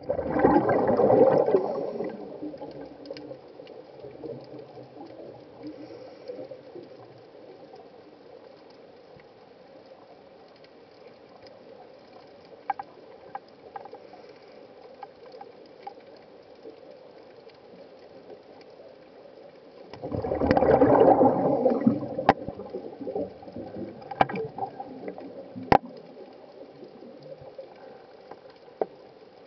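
Underwater recording: two loud gurgling bursts of air bubbles, one at the start and one about twenty seconds in, over a faint steady underwater hiss with a few sharp clicks.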